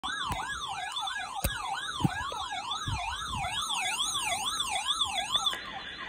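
Electronic siren, its pitch rising and falling about twice a second, with a few dull knocks under it; it cuts off suddenly near the end.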